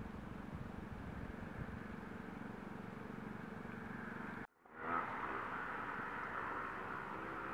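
Steady outdoor ambience with distant road traffic. The sound cuts out for a moment about four and a half seconds in, and a slightly louder steady hiss follows.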